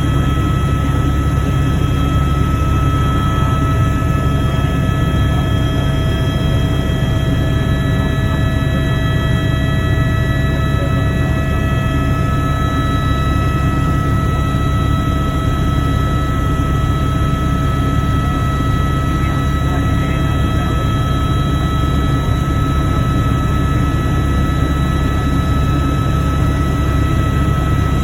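Helicopter running steadily: a constant low drone of rotor and engine with several steady high whining tones over it.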